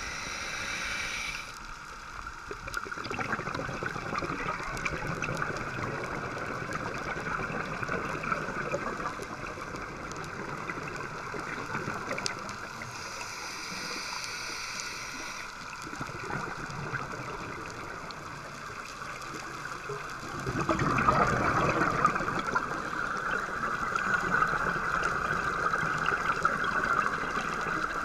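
Underwater sound heard through a GoPro's waterproof housing: a diver's scuba regulator breathing as a muffled water noise, with a louder rumble of exhaled bubbles starting about twenty seconds in and carrying on.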